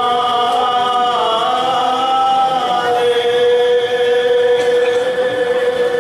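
Male voices chanting an Assamese devotional naam in long held notes: one note that bends slightly, then a lower note held steadily for the last three seconds.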